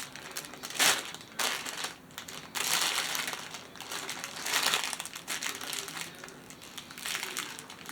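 Plastic packaging of a diamond painting kit crinkling in irregular rustling bursts as it is handled.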